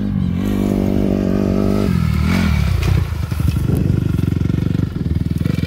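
Honda CRF250R four-stroke single-cylinder motocross bike running: its engine holds a steady pitch for about two seconds, then the pitch drops away. It settles into a low, pulsing chug as the bike rides slowly close by.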